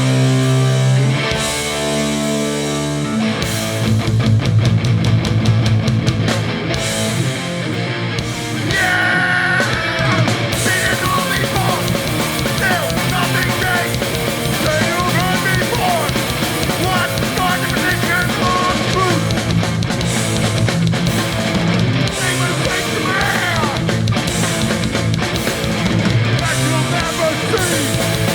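Hardcore punk band playing live through a PA. Distorted electric guitars hold chords for the first few seconds, then the full band with fast drums comes in.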